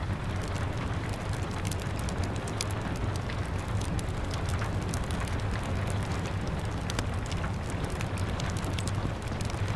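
Steady rain mixed with a crackling wood fire: frequent sharp pops and snaps over an even hiss and a low rumble.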